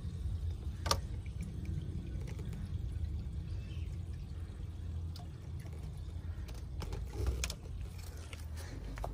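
Steady low wind rumble on the microphone with faint trickling water, and a few sharp clicks: one about a second in, two more near the end.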